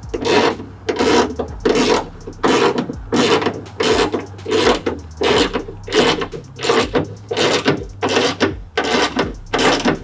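Hand ratchet driving an 11 mm bolt into the cage nut of a door handle lever, its pawl rasping on each back-swing, about fifteen even strokes at roughly one and a half a second.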